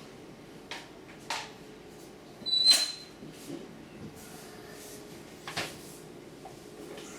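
Plastic clicks and knocks of Kärcher SC3 steam cleaner attachments being fitted together, with a louder clack and a short high squeak about two and a half seconds in.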